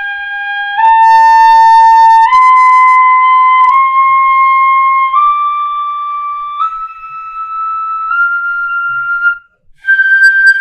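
Pífano, a side-blown Brazilian fife in C, playing a slow ascending G scale in long notes (sol, lá, si, dó, ré, mi, fá, sol), each note held about a second and a half and stepping evenly upward. A long-note exercise for clean tone, with a short breath before the top sol about ten seconds in.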